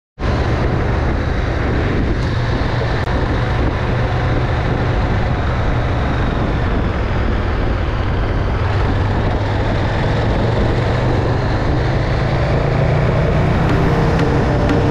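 KTM 1290 Super Duke R's V-twin engine running at steady revs on the move, with wind noise on the microphone.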